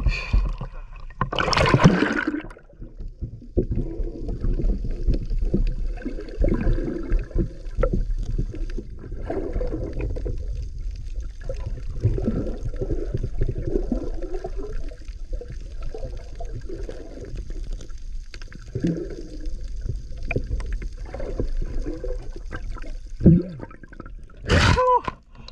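A splash about two seconds in as the camera goes under water, then muffled underwater gurgling and bubbling. Another splash near the end as it breaks the surface.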